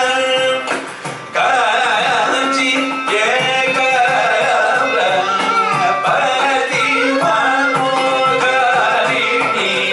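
Carnatic vocal duet: two male voices singing with bending, ornamented notes over a steady drone, accompanied by mridangam and khanjira percussion and violin. The music dips briefly about a second in, then carries on at full level.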